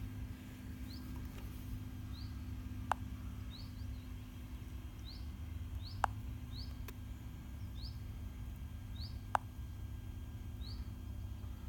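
A bird gives short rising chirps about once a second over a low, steady wind rumble on the microphone, with a few sharp clicks in between.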